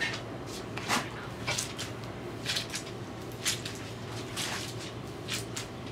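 Wet curly hair coated with curling custard being scrunched in the hands: a series of short, irregular squelches, roughly two a second. The squelch is the sign the hair is wet enough for the product to work in.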